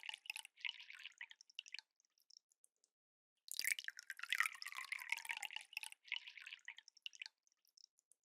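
Soju being poured from a bottle, twice: one pour trails off about two seconds in, and after a short pause a second pour starts and runs about four seconds, with a falling pitch in the stream, ending in a few last drips.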